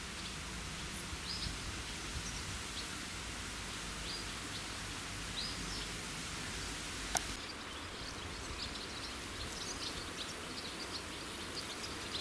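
Outdoor ambience: a steady hiss with short, high bird chirps scattered throughout, and a single sharp click about seven seconds in.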